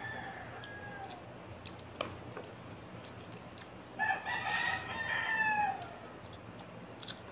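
A rooster crowing about four seconds in: one call of nearly two seconds that falls in pitch at the end. A fainter crow trails off near the start, and there are a few light clicks.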